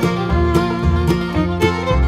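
Background music: an upbeat bluegrass-style tune with fiddle and plucked strings over a steady beat.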